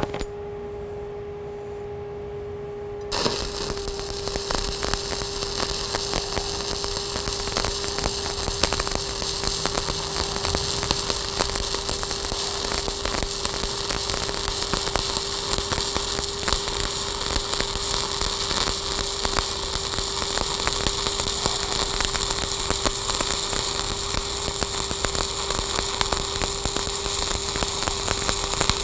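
Stick (SMAW) welding arc from a 7018 electrode laying the final cap bead on half-inch steel plate: a steady crackling sizzle that strikes up about three seconds in and carries on. A steady hum sits underneath.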